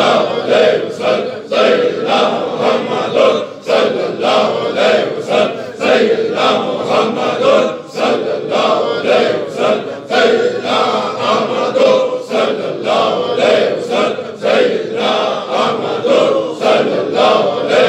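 A large group of men chanting together in unison, voices pulsing in a steady rhythm of short repeated phrases about two to three times a second.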